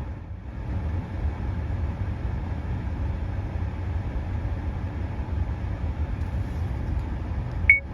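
Steady low rumble of a car, with a brief high-pitched beep near the end.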